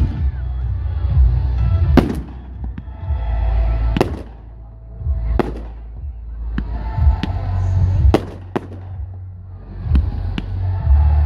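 Aerial fireworks shells bursting, a sharp bang every one to two seconds, with low rumbling between the bangs.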